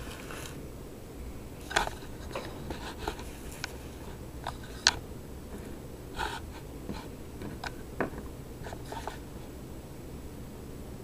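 The stainless-steel back of an iPod touch rubbing on sandpaper, stopping within the first second. Then a dozen or so light, irregular clicks and taps as the iPod is handled and lifted, the sharpest about five seconds in.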